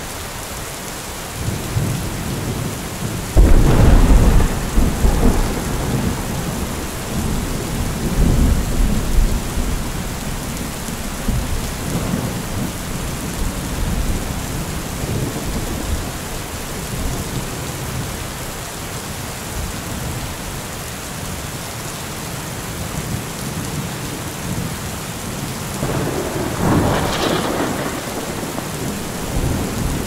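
Thunderstorm with steady rain: a loud thunderclap about three seconds in rumbles on for several seconds, and a second, softer roll of thunder comes near the end.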